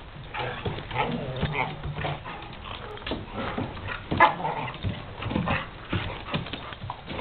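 Two dogs play-fighting, with short, irregular dog vocalisations and scuffling as they wrestle on a wooden deck. One loud sharp sound comes about four seconds in.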